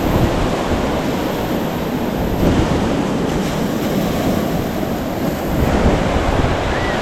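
Ocean surf breaking on the beach, a steady rushing that swells louder twice, with wind buffeting the microphone.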